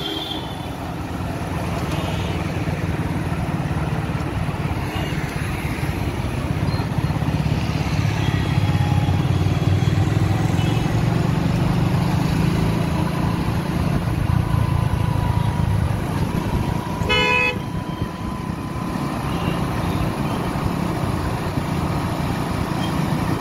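Road noise from riding a two-wheeler through city traffic: a steady low rumble of engine and wind, and about three-quarters of the way through another vehicle's horn honks loudly once, for about half a second.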